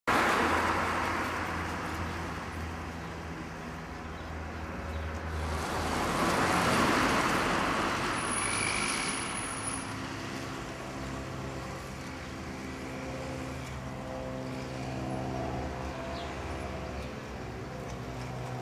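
Road traffic, with a car passing about six seconds in. From about ten seconds a low, steady motor hum comes in and grows as the solar scooter approaches: its electric motor is fed directly by a 50-watt solar panel, with no battery.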